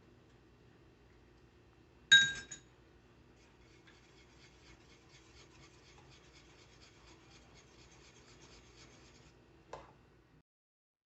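Kitchenware clinking: one sharp, ringing clink like a utensil striking a glass bowl, then faint quick scraping taps for several seconds, and a soft knock before the sound cuts off.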